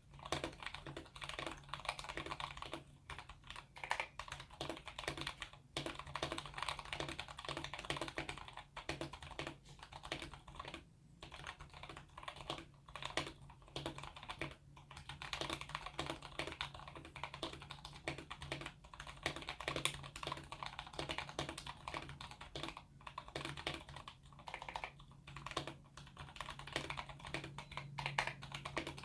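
Typing on a Tecware Phantom TKL mechanical keyboard with lubed Outemu Clear v2 switches on 68 g springs and PBT keycaps. The key presses come in a fast, continuous run of clacks, broken by a few short pauses.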